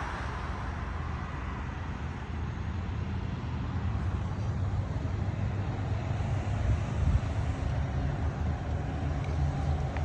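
Road traffic: the steady low rumble of a running truck engine and passing vehicles, with some wind on the microphone, growing a little louder in the second half.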